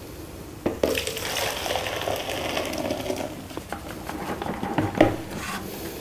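Water poured from a wet-and-dry vacuum's collection tank into a plastic bucket, splashing for a couple of seconds from about a second in. Then come a few light plastic knocks and a thump near the end.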